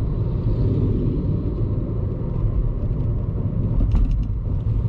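Car running along a road, heard from inside the cabin: a steady low rumble of engine and tyre noise, with a few short clicks about four seconds in.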